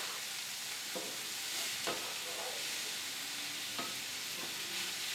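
Shredded zucchini and diced bell pepper sizzling steadily as they sauté in a nonstick skillet, stirred with a wooden spoon, with a few soft scrapes and taps of the spoon against the pan.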